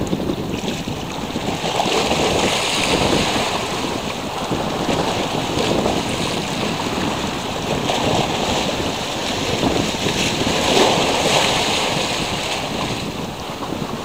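Rushing sea water with wind buffeting the microphone, swelling and easing every few seconds.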